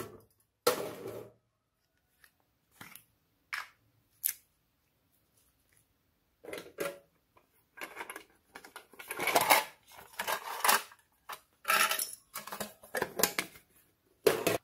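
Tin box and plastic case being handled and lifted off a glass dish: scattered clicks, knocks and scraping, sparse at first, then coming in close clusters through the second half.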